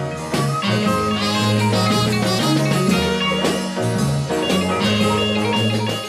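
Instrumental music interlude with held bass notes that change every second or so under busier higher parts.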